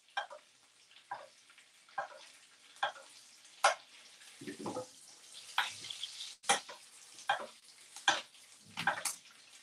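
Cannon of lamb being basted in a frying pan: hot fat sizzles while a metal spoon scoops and pours it, the spoon clicking against the pan about once a second.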